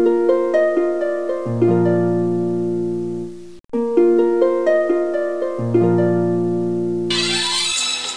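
Instrumental music: a short phrase of plucked, ringing notes over a held low note, played twice with a brief break between. Near the end a fuller, hissier music recording begins.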